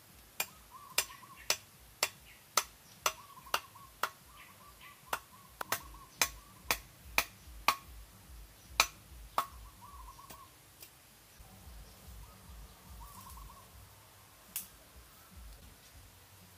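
Sharp knocks of a machete striking wood, about two a second for some nine seconds, then a single knock near the end. A bird calls faintly in the background with a short warbling call.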